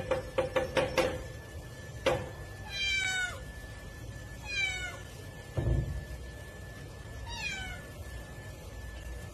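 A cat rattling a metal door bolt in quick clanks for about a second, one more knock a second later, then meowing three times, each meow falling in pitch, with a dull thump between the second and third meow.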